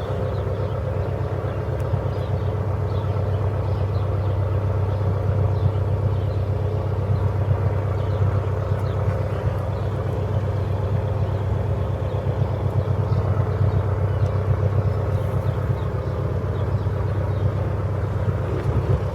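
The Cessna 170B's six-cylinder Continental piston engine running steadily, with an even, fast low firing pulse and a steady drone.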